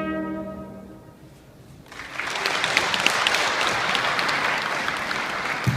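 A held trumpet note fades out in the first second. After a short lull, an audience starts applauding about two seconds in and keeps clapping.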